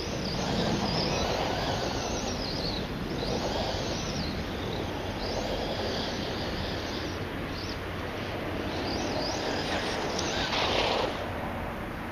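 Brushless 4092 electric motor of a Kyosho Scorpion XXL RC buggy, run by a VESC on 6S, whining up and down in short throttle bursts every second or two as the buggy drives across grass, over a steady rushing noise; the strongest burst comes near the end.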